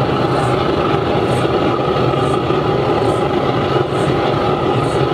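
Waste vegetable-oil burner firing into a brick-lined drum furnace: a steady rushing noise of flame and blower air, the burner running flat out as the furnace preheats.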